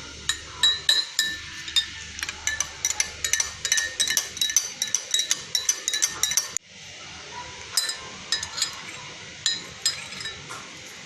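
A spoon clinking rapidly against a glass cup as a drink is stirred, several ringing clinks a second. It stops abruptly partway through, then a few slower clinks follow.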